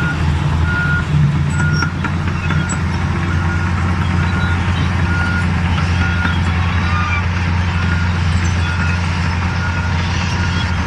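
Large bulldozer's diesel engine running steadily while its reversing alarm beeps about once a second, a single high tone.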